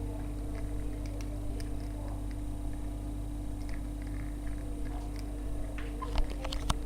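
A pet parrot making small clicks and short soft sounds over a steady low hum, with two sharper clicks near the end.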